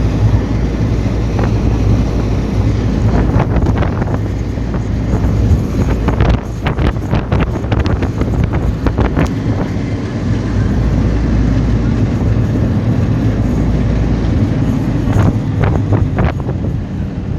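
River ferry's engine running with a steady low drone, under wind buffeting the microphone, with bursts of sharp crackles about six to nine seconds in and again near the end.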